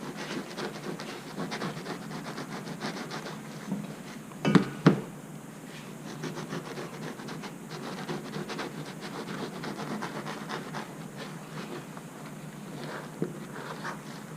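Serrated knife sawing through the crust of a French loaf in quick, scratchy strokes, with two loud knocks on the cutting board about four and a half seconds in.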